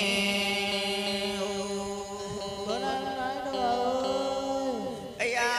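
Vietnamese funeral music in a slow, chant-like style: a long held note runs under a melody that slides up and down in pitch. A louder new phrase comes in sharply near the end.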